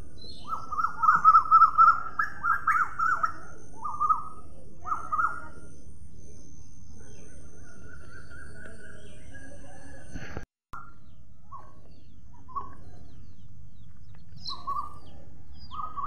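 Rose-ringed (Indian ringneck) parakeets calling: a quick run of short, shrill screeches in the first few seconds, then fewer, scattered calls and a cluster again near the end. The sound drops out briefly about ten and a half seconds in.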